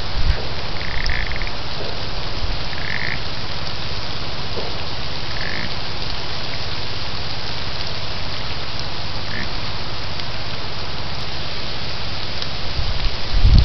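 Outdoor ambience on a trail camera's microphone: a steady hiss with a low rumble, and four short, faint high calls. It swells into louder low rumbling near the end.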